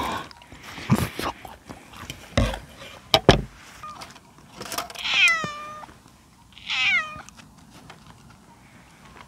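Domestic cat meowing twice, about five and seven seconds in, each call sliding down in pitch. Before the meows, a few sharp knocks and clicks, the loudest about three seconds in.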